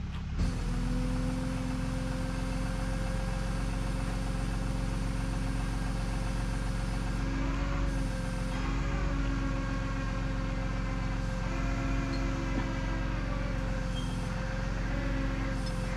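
Tow truck's engine running steadily, a low hum with a steady whine over it; it picks up about half a second in and holds level.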